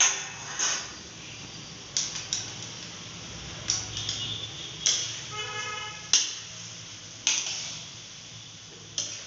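Metal spatula clanking and scraping against a steel kadai as okra is stirred: sharp clanks about every second, one ringing on briefly about halfway through.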